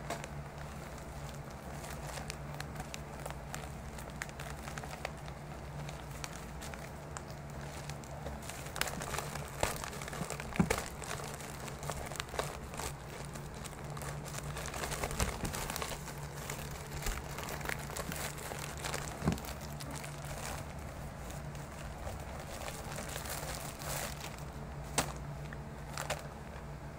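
Plastic courier mailer and plastic shopping bag being handled and opened, crinkling and rustling irregularly with a few sharper crackles and tears. A steady low hum runs underneath.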